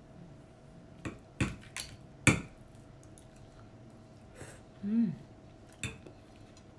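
Metal fork clinking against a plate while eating noodles: a handful of sharp clinks, the loudest about two seconds in, and another near the end. A short falling hum from the eater about five seconds in.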